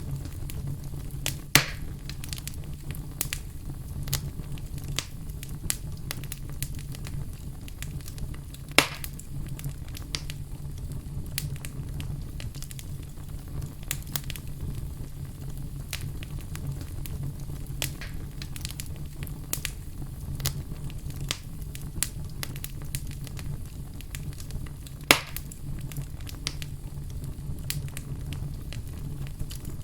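Fire burning in a fireplace, crackling steadily over a low rumble of flames. Three louder pops stand out: one near the start, one about a third of the way through and one near the end.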